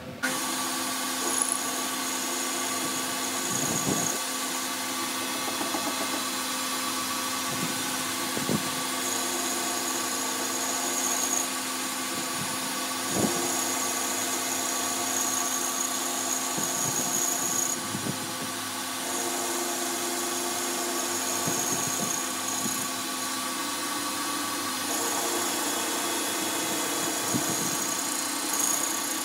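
Metal lathe running steadily, spinning a fluted cutter that cuts into the end of a steel bar, with a high thin whine from the cut that comes and goes.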